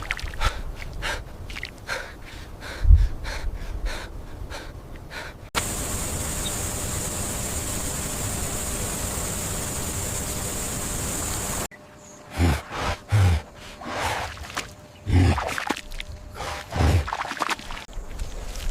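Gasps and hard breathing with short knocks. About five and a half seconds in, a steady rushing hiss cuts in abruptly and stops just as abruptly about six seconds later. Then come short low grunts and snorts.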